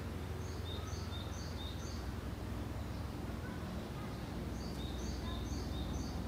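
A small songbird singing two short phrases of quick, high repeated notes a few seconds apart, over a steady low outdoor rumble.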